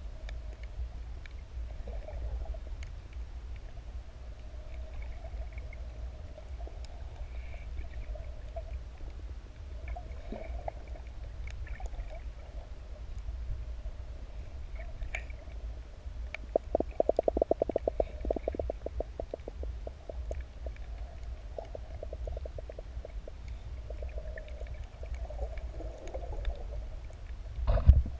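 Muffled underwater sound picked up by a camera held below the surface: a steady low rumble of water moving around it. About 17 seconds in comes a couple of seconds of rapid clicking pulses, and there is a louder rush just before the end.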